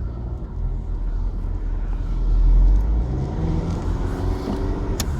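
Volkswagen Passat 2-litre turbo-diesel engine running, a steady low rumble that swells for about a second midway, with one sharp click near the end.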